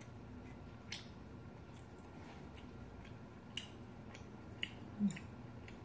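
Quiet eating sounds: wooden chopsticks clicking against a ceramic bowl of ramen, and chewing. A handful of small clicks are scattered through, the loudest with a soft thump about five seconds in.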